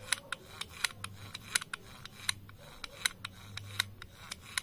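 Sharp, irregular clicks, a few a second, from the butterfly flap of a removed Nissan Pixo throttle body being worked open and shut by hand while it is cleaned with brake cleaner. A faint steady hum lies underneath.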